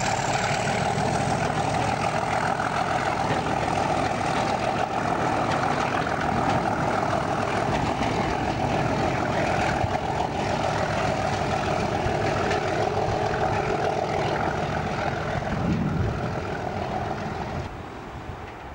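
Class 37 diesel locomotive working hard as it hauls a train of coaches away, a loud, steady engine note; it drops away sharply near the end.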